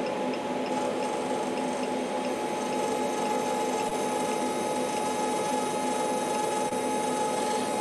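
Steady electrical hum with several fixed tones over a fan-like hiss from the car-amplifier test bench: two amplifiers and their bench power supplies running under heavy current draw. Faint, even ticking, a couple of ticks a second, runs under it for the first few seconds.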